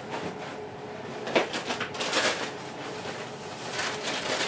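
Cornflakes being shaken out onto a carpet: a dry, irregular rustle and crackle with a sharp click about a second and a half in.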